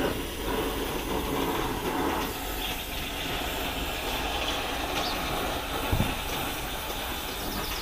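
Gas torch flame hissing steadily as it slowly heats a new starter ring gear, expanding it to shrink-fit onto the flywheel. A single light knock about six seconds in.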